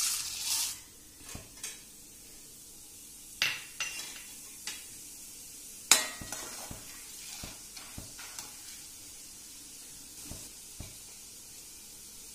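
Roasted split chickpeas going into hot oil in an aluminium kadai, with a sizzle for about a second as they go in, then a perforated metal ladle stirring them, knocking and scraping on the pan a dozen or so times. The loudest knock comes about six seconds in, over a steady faint sizzle of frying.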